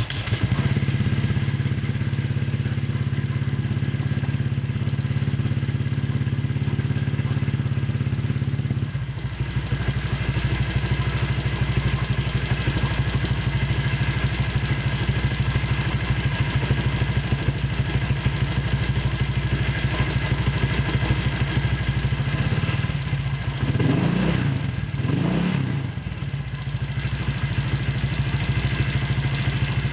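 Honda Vario 125's single-cylinder four-stroke engine starting and idling through a newly fitted copy CMS aftermarket exhaust, with two quick blips of the throttle near the end. The exhaust still leaks at the header-to-muffler joint, which gives it a leaky sound.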